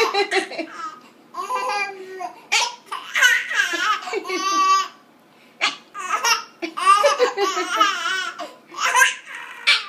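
A baby about ten months old laughing and giggling in repeated bursts, the laughter set off by his own hiccups.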